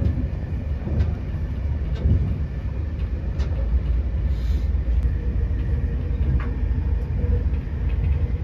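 Passenger train carriage running along the track, heard from inside the cabin: a steady low rumble with faint clicks now and then.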